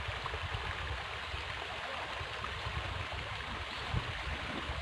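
River water flowing steadily, an even rush of noise over an uneven low rumble.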